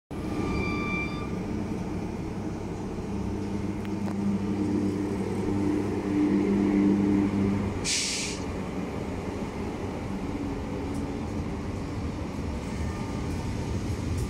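SNCF BB 7200 electric locomotive pulling away with Corail coaches, with a steady electric hum until it has passed. About eight seconds in there is a short sharp hiss of air, and then the coaches roll by on the rails.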